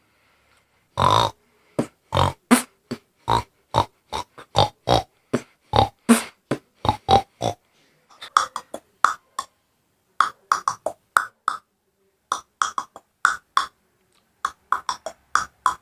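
A man's mouth sound effects: a quick string of short, sharp bursts, about three a second, then after a brief pause several clusters of rapid bursts with short gaps between them, like beatboxing.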